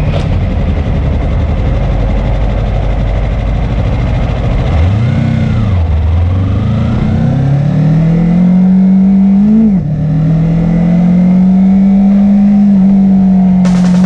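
Suzuki SV650 V-twin motorcycle engine under way with wind rush on the microphone: a quick rev up and down about five seconds in, then accelerating with the pitch climbing, a short dip near ten seconds as it shifts gear, and running steadily at speed after that.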